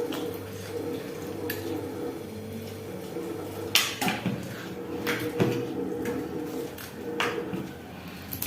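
A handful of sharp clinks and knocks of dishes during a meal, five or so spread out with the loudest about halfway through, over a steady low hum.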